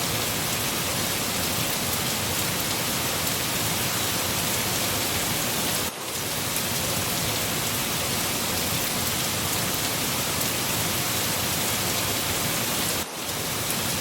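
Steady heavy rain falling on a surface, a dense even hiss of drops. The level dips briefly about six seconds in and again near the end.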